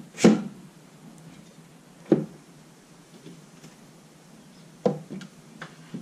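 Sliding glass panes of a Land Rover Perentie side window knocking against the frame and the new window lock as a hand shoves them, testing whether the lock holds them. A few sharp knocks: the loudest just after the start, another about two seconds in, then a quick pair and smaller knocks near the end.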